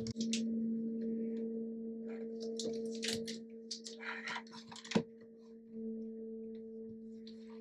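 A steady electric hum from a Bambu Lab P1S 3D printer running its start-up self-test, with plastic rustling, clicks and one sharp knock as the AMS filament unit is handled and set on top of it.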